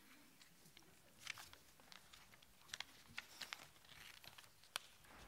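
Faint handling of paper sheets: light rustling with scattered small clicks and taps, and one sharper tick near the end.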